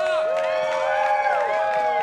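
Crowd cheering, with several voices whooping and yelling in long held shouts that overlap one another.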